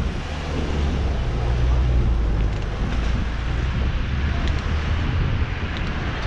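Motorcycle engine running at steady revs while riding, with wind rushing over the helmet-mounted microphone.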